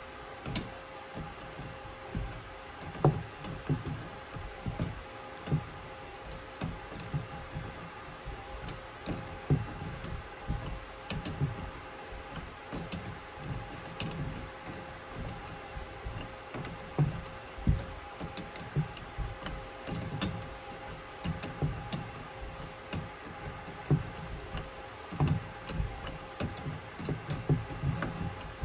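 Irregular small clicks, knocks and low thumps of hand tools and faucet fittings being handled during a washing-machine faucet repair, over a steady two-tone hum.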